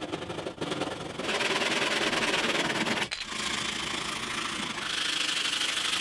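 A handsaw finishing a cut through a wooden board, then a hand sanding block (sandpaper mounted on plywood) rubbed quickly along the sawn edge, a steady rasping hiss with a short break about three seconds in.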